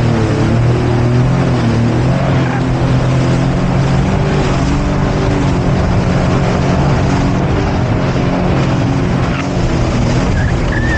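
Jet ski engine running steadily under way, its pitch shifting slightly, over the rush of water and wind.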